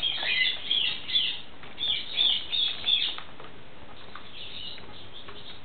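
Pet corella calling in a quick run of short, high-pitched squawks over the first three seconds, then softer calls near the end.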